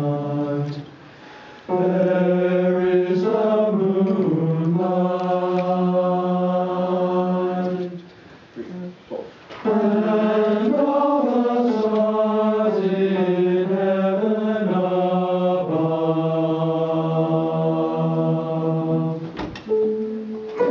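A small group of men's voices singing slow, sustained phrases in chords, in two long phrases with a short break about eight seconds in. The singing stops a little before the end.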